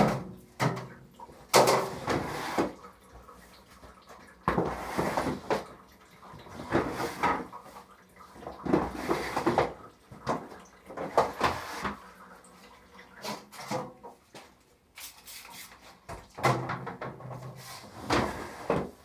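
Plastic fodder trays being handled on wooden shelf racks: irregular clunks, knocks and scrapes of plastic against wood, with some water splashing.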